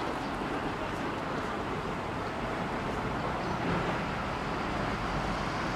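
Steady outdoor background noise: an even low rumble with hiss above it, with no distinct events standing out.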